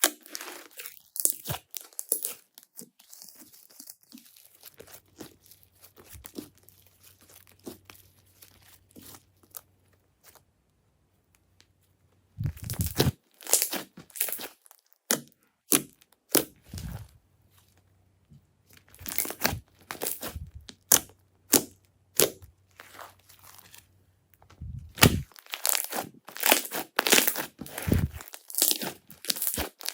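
Glossy slime being pressed and stretched by hand, giving bursts of sharp crackles and pops, with a short quiet pause near the middle.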